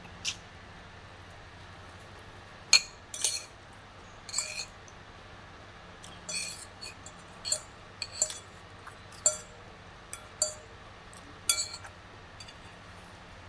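Cutlery clinking against a dish during a meal: about ten short, separate clinks at uneven intervals, each with a brief ring, over a steady low hum.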